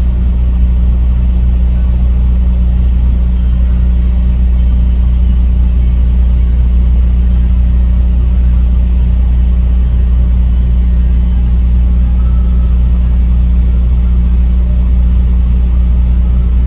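A vehicle's engine idling steadily, a loud low hum heard from inside the cab.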